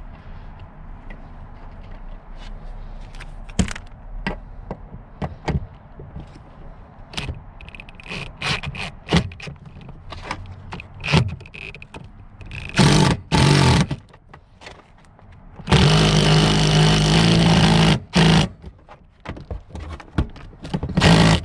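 Seat-belt hardware being handled in a car's rear seat area: metal clicks, knocks and scrapes. Then a power tool runs in loud bursts as it drives the seat-belt anchor bolts: two short bursts, one about two seconds long, and two more short ones.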